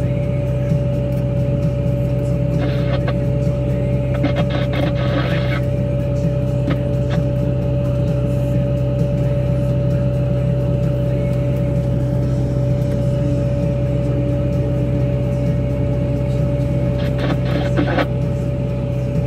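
Wille 665 loader's diesel engine and Tokvam snowblower running steadily while clearing snow, heard from inside the cab: a steady drone with a high whine over it. Short bursts of rattling come a few seconds in and again near the end.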